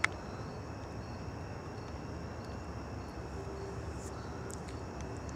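Steady low background noise, with one sharp click at the very start and a faint thin tone in the second half.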